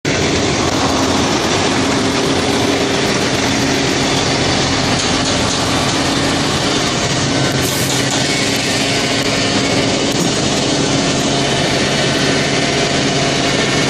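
Engines and machinery of an oil-field well site running steadily: a constant loud din, a low hum under a wash of mechanical noise, with no single event standing out.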